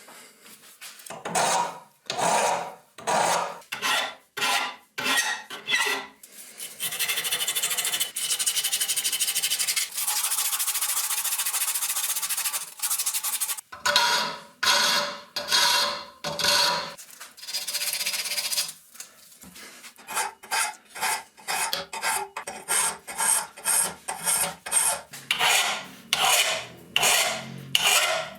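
Back-and-forth abrasive strokes on the metal of a rusty hand vice as the rust is worked off. The strokes come about two a second at first, turn into a steady stretch of continuous rubbing in the middle, and come quicker near the end.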